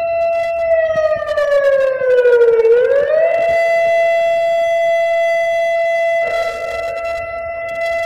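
Turkish emergency alert alarm sounding: a loud, steady, horn-like tone. About a second in it slides down in pitch for two seconds, swings quickly back up at about three seconds, and then holds steady.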